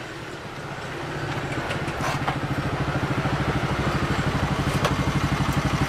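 Motorcycle engine pulling up close and idling with a rapid, even putter, growing louder over the first couple of seconds and then holding steady.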